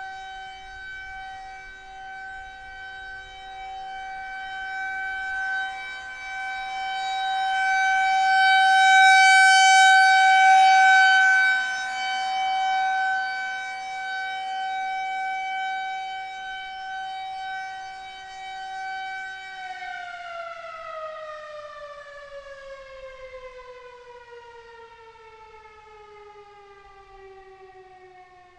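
Federal Signal 2001-SRNB rotating outdoor warning siren sounding its steady alert tone, swelling louder and then fading as the head turns. About two-thirds of the way in it powers down, its pitch falling in a long, slow glide as the rotor winds down.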